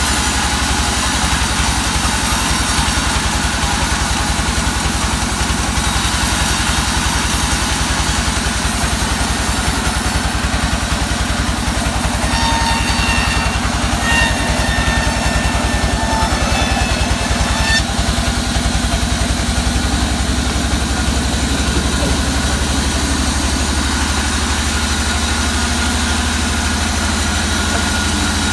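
Band sawmill running steadily as a waru log is fed through the blade, a constant low mechanical hum with a fast even pulse. A faint higher whine shows up briefly about halfway through.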